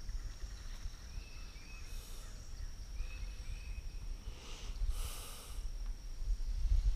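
Outdoor river ambience: wind rumbling on the microphone, a steady high thin whine, and a few short bird chirps in the first half. Two soft hissing swishes come near the end.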